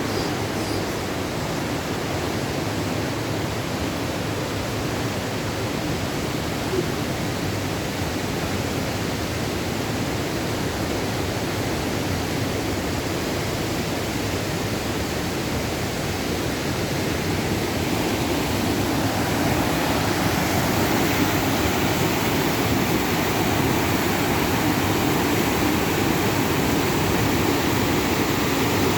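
Upper Düden Waterfall's falling water: a steady, dense rush that grows a little louder about two-thirds of the way through.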